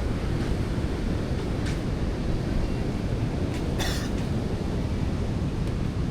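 Wind buffeting the microphone over the steady rumble of heavy surf, with a brief crackle about four seconds in.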